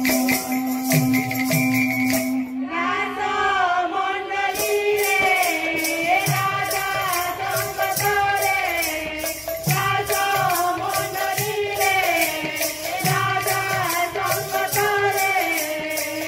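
Odia devotional kirtan music: fast, steady jingling of hand cymbals and strokes of a khol barrel drum. A woman's singing comes in over them about three seconds in, after a held steady tone.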